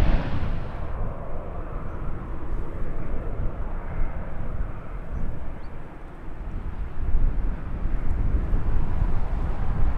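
Jet airliner engine noise, loudest at the start; about a second in the higher part falls away, leaving a low rumble that grows again in the second half.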